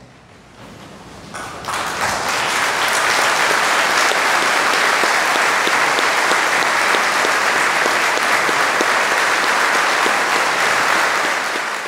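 A large crowd giving a standing ovation: applause that swells over the first two seconds and then holds steady and loud.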